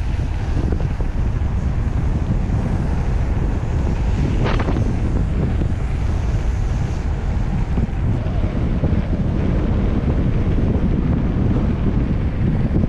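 Wind buffeting a camera microphone while riding a mountain bike on a trail: a steady, loud rumble, with one brief, higher sound about four and a half seconds in.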